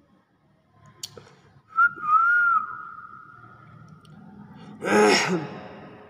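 Common hill myna whistling one long, clear note that wavers in pitch and fades, then giving a short, harsh, voice-like squawk near the end.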